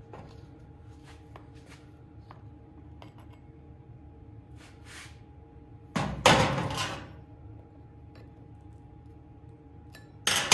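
Chainsaw parts and a hand tool being handled on a workbench: a few light clicks, then a loud clatter of two quick knocks about six seconds in, and another sharp knock near the end.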